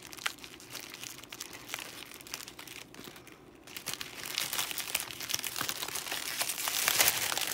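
Shiny foil gift bag crinkling as it is handled and its ribbon untied. The quick crackling dips briefly about three seconds in, then grows louder through the rest.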